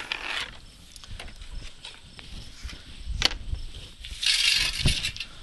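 Handling noises as a Pelican-case darkbox is lifted off its folding stand: scattered clicks, a sharp knock about three seconds in, then a short scraping rustle and a thud near the end.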